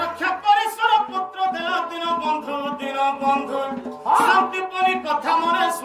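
Sambalpuri Danda Nacha folk music: a voice sings a melody over instrumental accompaniment, with only a few drum strokes near the end.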